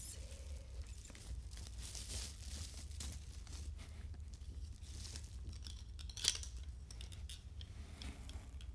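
Bubble wrap crinkling and crackling as a pair of sunglasses is pulled out of it and handled, with one sharper crack about six seconds in.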